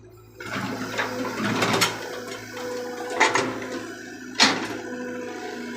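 Excavator at work: a steady engine hum under a rushing, pouring noise, with three sharp knocks about a second and a quarter apart.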